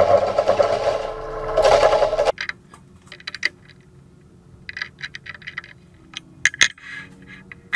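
Turning tool cutting a tenon on a spinning blank of old barn-beam wood on the lathe: a loud, steady scraping hiss that stops suddenly a little over two seconds in. After that, a metal chuck key clicks and rattles in the scroll chuck as its jaws are tightened on the tenon.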